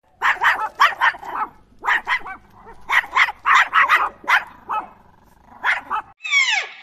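Dog barking in quick runs of short, sharp barks. Near the end it cuts abruptly to a different animal's call that falls in pitch.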